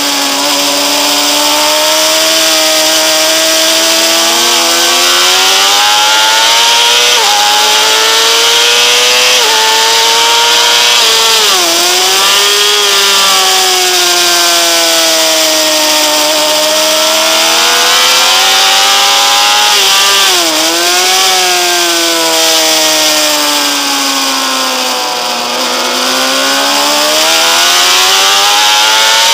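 Honda CBR600RR's inline-four engine at high revs on track, climbing through the gears with quick upshifts. Twice it drops sharply through a rapid run of downshifts into a corner and pulls hard again, with a steady rush of wind noise over the on-board microphone.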